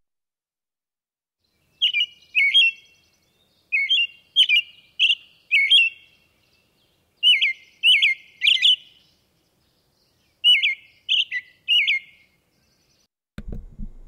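American robin singing its typical song: short whistled phrases of two to four notes, in four groups with a pause of a second or so between them.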